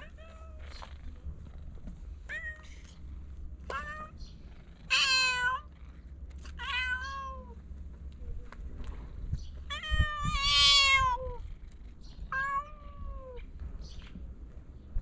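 A cat meowing repeatedly, about seven meows, with two longer, louder ones about five and ten seconds in.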